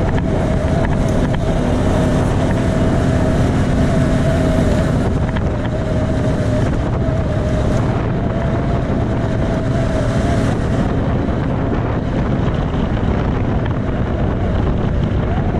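Off-road vehicle driving along a gravel track: steady engine and drivetrain noise with tyre rumble and wind buffeting the microphone. A steady whine runs through it and fades out about two-thirds of the way through.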